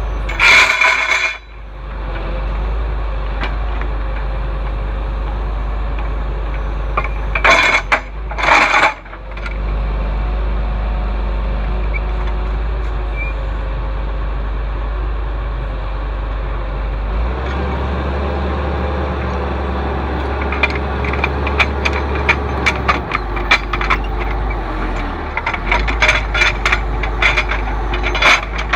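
A large engine running steadily, with two short loud bursts of noise, one near the start and one about a third of the way in. Toward the end comes a run of sharp metallic clinks and rattles, like chain links or tools being handled.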